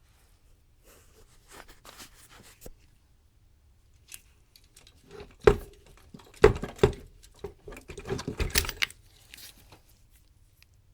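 Hands working on parts at a bench during a teardown: light scraping and rustling, then a run of sharp knocks and clatters from about halfway through.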